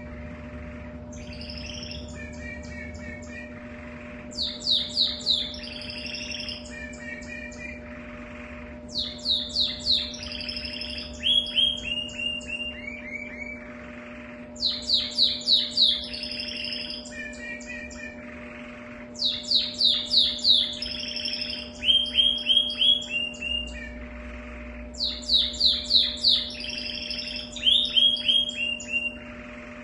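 Domestic canary singing the same song phrase over and over, about every five seconds. Each phrase is a loud run of rapid, sharp down-sweeping notes followed by lower trills. A steady low hum sits underneath.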